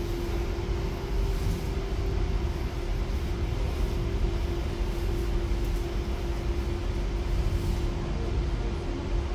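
Steady low rumble of subway station background noise, with a constant mid-pitched hum over it.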